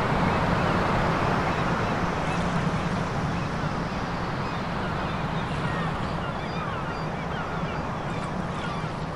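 Seaside ambience: a steady rush of surf and wind under a low steady hum. From about four seconds in, many short chirping bird calls come in over it.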